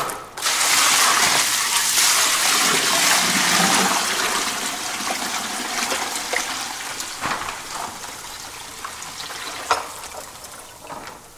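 About 50 litres of water tipped all at once from one plastic tub into another that is packed with sulfur and other dry ingredients, gushing and splashing in a single pour for a batch of JADAM sulfur. The gush starts about half a second in, is loudest for the first few seconds, then thins out toward the end.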